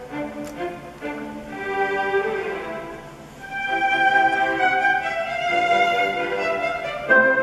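Classical music with bowed strings played from a computer through a Nutube vacuum-tube headphone amplifier into a small Logicool desktop speaker, the amplifier working. The music swells louder about three and a half seconds in.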